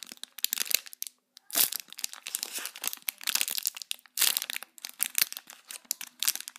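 Clear plastic packaging bag crinkling in repeated bursts with short pauses as fingers squeeze and turn a homemade squishy inside it.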